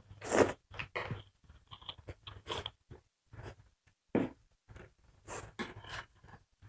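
Close-up eating sounds: chewing and biting mouthfuls of food, in irregular short crunches and clicks.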